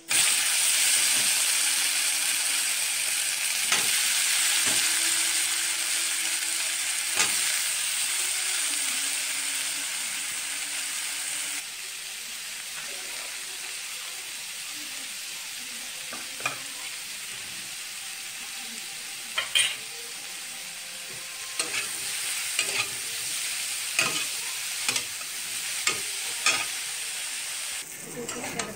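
Onions and potatoes sizzling as they fry in oil in a steel kadai, loudest over the first ten seconds or so. A metal spatula stirs them, knocking and scraping against the pan, most often in the second half.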